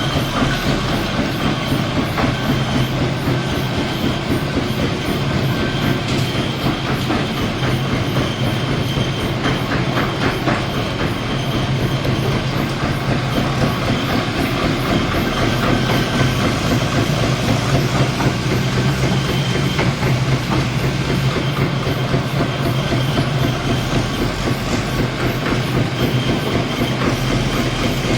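Biomass briquette machine (90 mm) running steadily: a constant low hum under a fast, continuous mechanical clatter.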